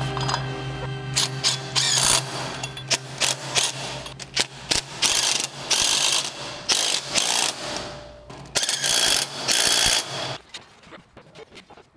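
DeWalt cordless driver with a socket running lug nuts onto the hub studs to fasten a wheel spacer to a tractor's rear hub. It goes in a series of short bursts, the longest about a second and a half.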